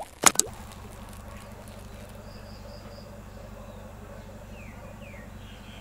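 A steady low electrical hum, with a couple of sharp clicks just before it starts and faint high chirps above it.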